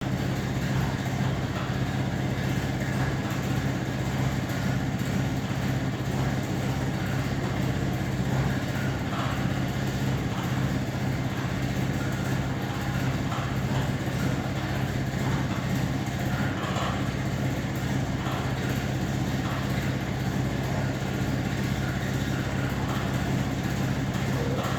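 Trade-Wind exhaust fan's ball-bearing motor running with a steady hum and whoosh; its bad bearings make it run shaky.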